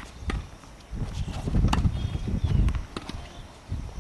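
Tennis ball being struck and bouncing during a rally: a few sharp pops, the loudest about halfway through, over a low rumble.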